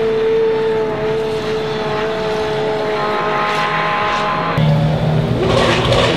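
Pagani Huayra R's naturally aspirated V12 racing engine running at a high, steady pitch under power, the note sagging slightly. About four and a half seconds in it cuts suddenly to a deeper, louder supercar engine sound with quick rising and falling revs.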